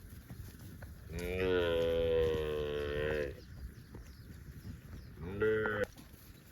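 Cow mooing: one long moo of about two seconds, then a short one near the end.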